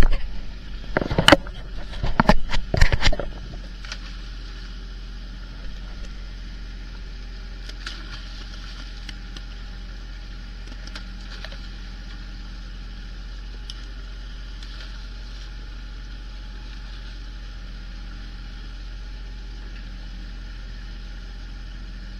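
Several loud sharp knocks in the first few seconds, then the steady running drone of a fishing boat's engine.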